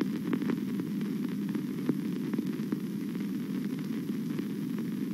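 Steady hiss and low hum with scattered faint crackles, the noise floor of an old film soundtrack, with no distinct event.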